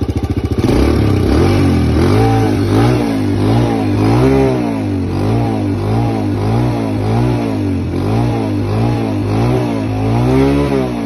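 Kawasaki KLX125 dirt bike's single-cylinder four-stroke engine, stationary, going from idle to repeated hard throttle blips about a second in, the revs rising and falling about twice a second as the rider tries for the rev limiter.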